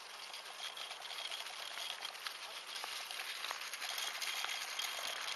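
A small wheeled rover's spoked wheels crunching and pattering over dry lakebed crust, with a faint high whine that comes and goes. It grows louder as the robot nears.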